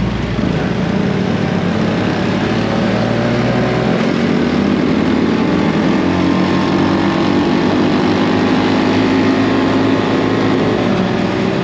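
Small single-cylinder motorbike engine running steadily at road speed, heard from on the bike, with wind rushing over the microphone.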